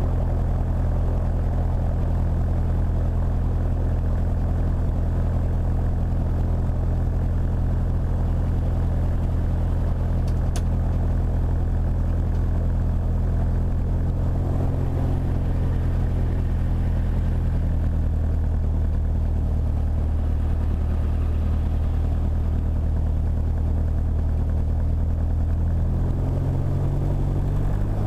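Scottish Aviation Bulldog's four-cylinder piston engine idling on the ground, its propeller turning, heard from inside the cockpit. The note is steady and loud, and shifts slightly near the end.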